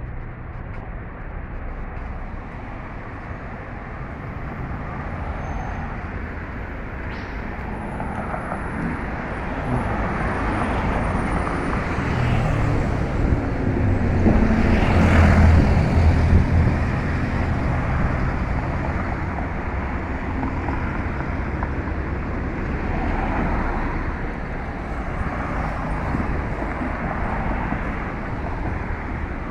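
Outdoor road-traffic noise: a continuous rumble of passing vehicles, with one vehicle passing close and loudest about halfway through before the sound eases off.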